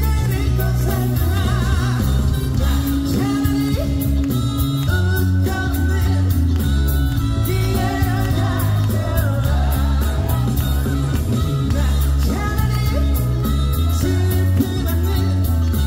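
Male trot singer singing live over loud pop accompaniment with heavy bass and a steady drum beat.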